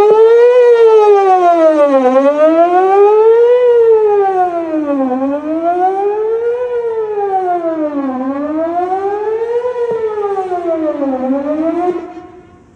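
Outdoor tornado warning siren sounding a test wail: one tone sweeping up about an octave and back down about every three seconds. It is loud, eases a little after about four seconds, and cuts off near the end.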